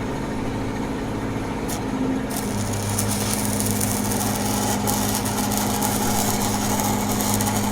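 Stick welding arc tacking a threaded o-let onto steel pipe: a dense, steady crackle and sizzle that starts about two seconds in, after a short click. A steady engine hum runs underneath throughout.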